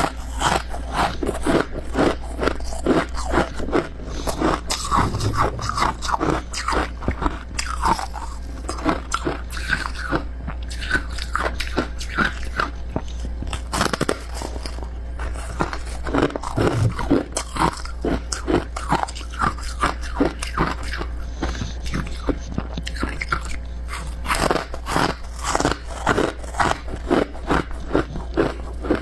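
A person biting and chewing freezer frost (snow ice), a continuous run of crisp crunches close to the microphone, over a steady low hum.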